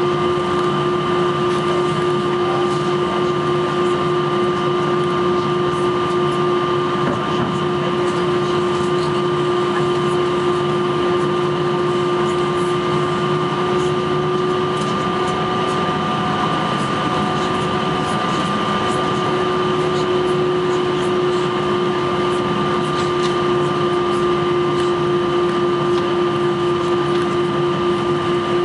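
Steady cabin noise inside an Airbus A321 taxiing: its twin jet engines running at low thrust under the even rush of the cabin air system. A constant hum and a few steady whining tones carry through.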